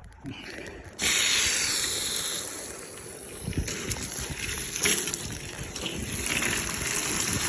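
Water spraying and splashing onto a roof edge and gutter, starting abruptly about a second in as a steady loud hiss. It is run to show the water flow that backsplashes behind the gutter, between the gutter and the fascia board.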